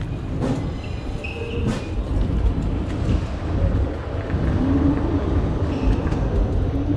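Wind buffeting the microphone and road noise while riding an electric unicycle at speed: a steady low rumble, with a couple of sharp clicks in the first two seconds.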